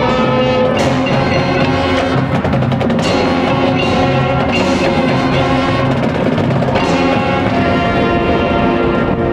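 High school marching band playing its show: sustained wind chords over drums and the front ensemble's mallet percussion, with several loud accented hits, the sharpest about a second in and again near seven seconds.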